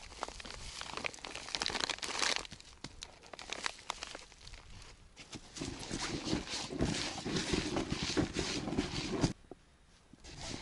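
Rustling and crinkling handling noise with many small clicks, growing denser about halfway through and cutting off abruptly about nine seconds in.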